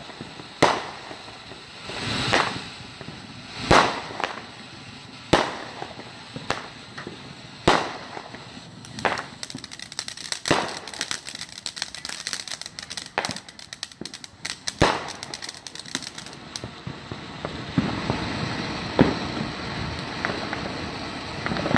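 Ground fountain firework burning on pavement: a spray of sparks with five sharp bangs in the first eight seconds, then a dense run of crackling about halfway through, settling into a steady hiss near the end.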